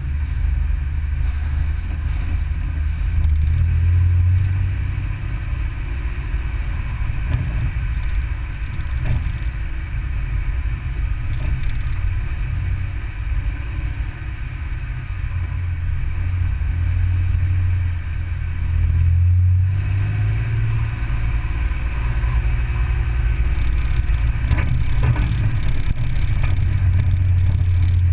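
Vehicle engine and tyre noise heard from inside the cab while driving on a dirt road: a low engine drone that swells and eases several times as the throttle changes.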